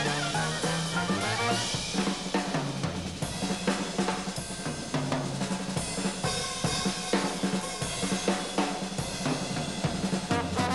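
Jazz drum kit solo break: snare, bass drum and cymbals played in a rapid, irregular stream of strokes while the horns lay out.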